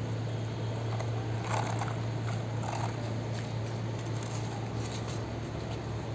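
Faint crunching and scraping of sand as a child scoops and pushes it with toy vehicles, with a few scratchy bursts a couple of seconds in, over a steady low hum.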